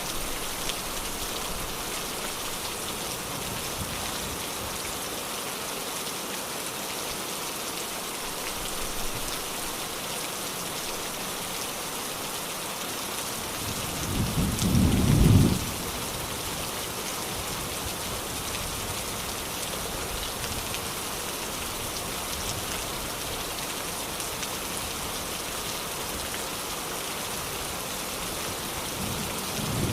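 Steady rain falling, with a low roll of thunder about halfway through that builds for a second or two and then stops abruptly.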